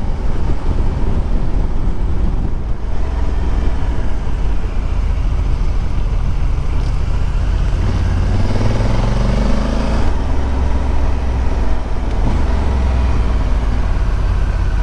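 Motorcycle engine running under way, with heavy wind noise over the microphone. About halfway through, the engine pitch rises as the bike accelerates, then drops back with a gear change.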